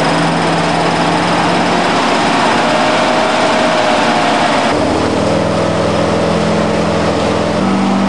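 An off-road 4x4's engine running steadily under load, its note changing abruptly about halfway through.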